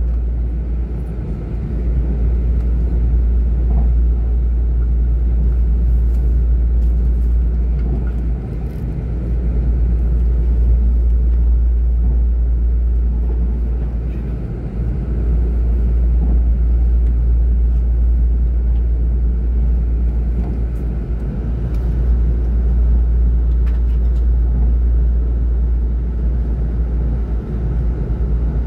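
Steady low rumble of a moving vehicle heard from inside its cabin, dipping briefly in loudness a few times.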